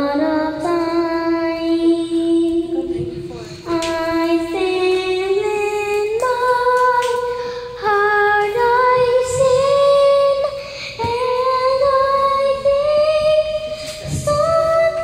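A young girl singing unaccompanied, holding long notes that slide up and down between pitches.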